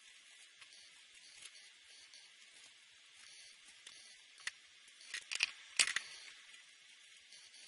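Felt-tip marker nib scratching and dabbing on paper over a steady faint hiss, with a cluster of sharp scratchy taps about five to six seconds in as the last strokes are made and the marker lifts away.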